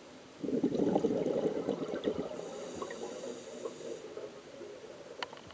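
Scuba diver's exhaled regulator bubbles, heard underwater through the camera housing: a sudden gurgling rush of bubbles about half a second in that fades over the next couple of seconds, over a faint steady hiss.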